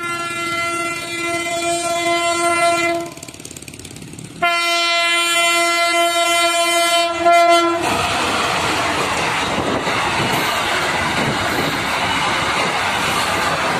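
Diesel locomotive horn blown twice, each blast about three seconds long, as the train approaches. From about eight seconds in, the loud, steady noise of the passenger carriages' wheels on the rails as they pass close by.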